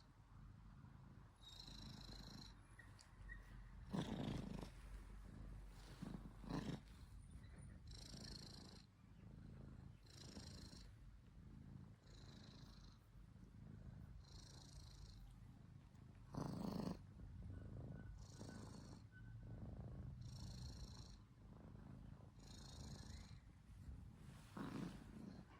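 Domestic orange tabby cat purring steadily and loudly enough to sound like a motorbike engine, with a faint hiss pulsing about every two seconds. A few brief louder sounds come through, about four seconds in, near seven seconds, near seventeen seconds and near the end.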